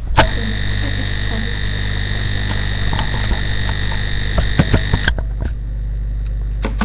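A steady electrical hum and buzz that starts suddenly, with a high whine over it that cuts off about five seconds in, and a few scattered clicks.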